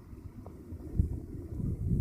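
Wind buffeting the microphone: an uneven low rumble that comes and goes in gusts, with a stronger gust about a second in.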